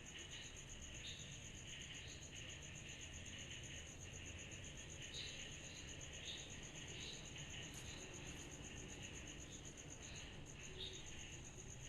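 Summer-night insect chorus, billed as cicadas: a steady, high, rapidly pulsing trill with a denser buzz beneath it and scattered short chirps, over a faint low rumble.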